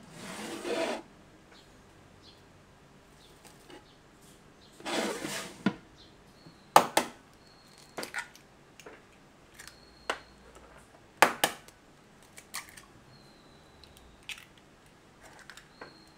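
Two eggs cracked one after the other against the rim of a ceramic bowl: two sharp knocks about four and a half seconds apart, the loudest sounds, with lighter clicks and taps of shell and bowl around them. There are two short rustling noises, near the start and about five seconds in.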